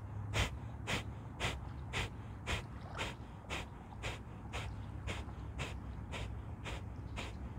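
Kapalbhati (fire breath): a man's sharp, forceful exhalations through the nose in an even rhythm of about two a second, growing fainter toward the end.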